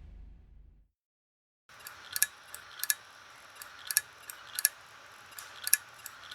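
Failing Xbox One X internal hard drive clicking: pairs of sharp clicks repeating about every 1.75 seconds, starting a couple of seconds in. This is the repeated clicking of a failed drive.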